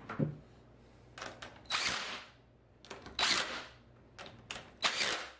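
Cordless power driver spinning nuts down onto battery terminal studs in four short bursts, with small clicks between them.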